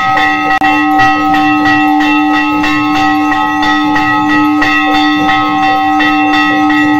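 Bells ringing continuously, struck about twice a second, with a steady low tone held underneath.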